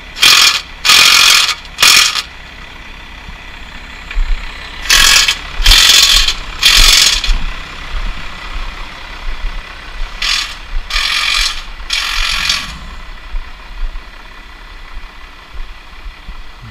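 Impact wrench hammering the bolts of a tractor's rear dual wheel tight, in three groups of three short bursts about five seconds apart.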